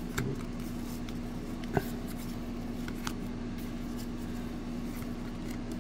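1991 Upper Deck football trading cards being handled and slid from one hand to the other, giving a few soft clicks, the sharpest about two seconds in, over a steady low hum.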